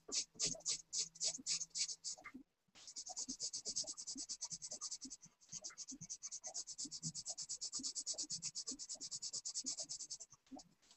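Coloured pencil scratching back and forth on drawing paper while shading: slower strokes for about two seconds, then after a brief break a fast, even run of short strokes with one short pause.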